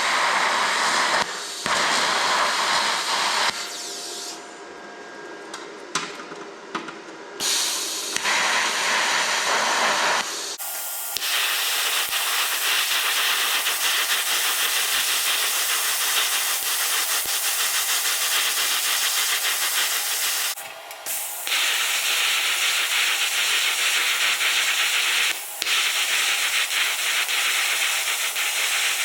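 TIG welding arc on a metal motorcycle gas tank: a steady hiss, broken into short starts and stops at first, then running continuously from about a third of the way in.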